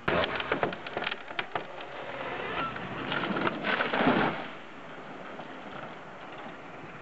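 A tree cracking and falling: a run of sharp cracks, then a rising swish of the crown through the air that ends in a crash into the ground about four seconds in.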